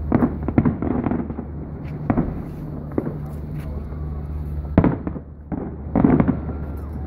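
Aerial fireworks bursting overhead: a string of sharp bangs at uneven intervals, several close together in the first second and the loudest about five seconds in and again just after six seconds.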